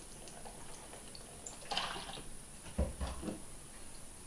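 Soy sauce poured from a bottle into a plastic mixing bowl of oil, a faint liquid trickle and splash, with a dull knock near three seconds in.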